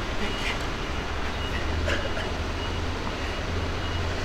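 Steady low rumble of outdoor background noise, with a few faint tennis racket-on-ball strikes from a rally.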